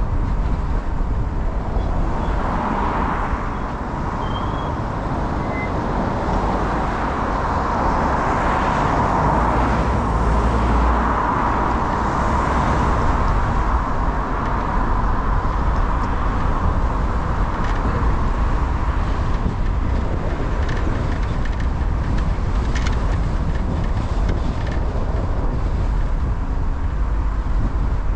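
Car driving at low town speed: steady engine and tyre noise with a strong low rumble.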